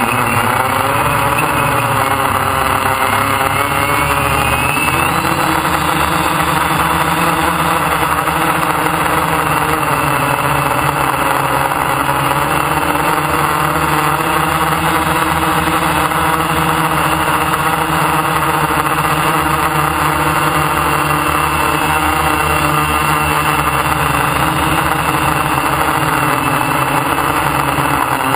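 DJI F550 hexacopter's six electric motors and propellers buzzing steadily in flight, heard from a camera mounted on the frame. The pitch wavers in the first few seconds as the motor speeds shift, then holds fairly even.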